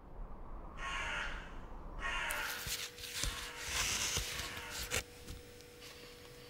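Stiff plastic photo-album pages rustling and crinkling as they are handled and turned, with sharp clicks and a louder click near the end.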